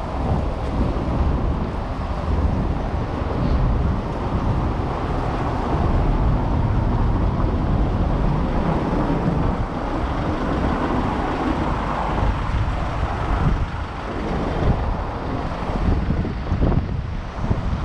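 Steady low rumble of city street traffic mixed with wind buffeting the microphone.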